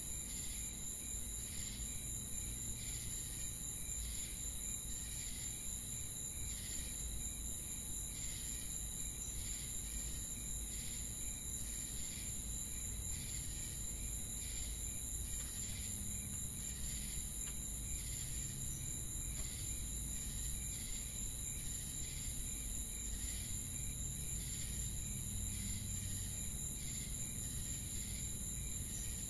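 Insect chorus of crickets: a steady, high-pitched trill with a regular, evenly repeating chirp pulsing over it.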